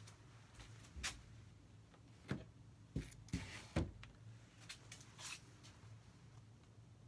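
Faint handling sounds of a painter working at an acrylic canvas: scattered soft knocks and short rubbing strokes, busiest between about two and four seconds in, over a low steady hum.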